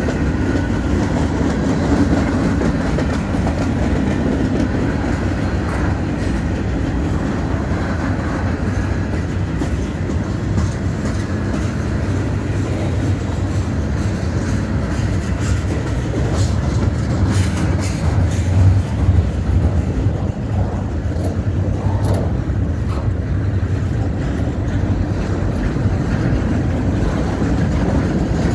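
Cars of a mixed freight train, covered hoppers and tank cars, rolling steadily past at close range: a continuous rumble of steel wheels on rail, with scattered clicks and clanks of wheels crossing rail joints that bunch together past the middle.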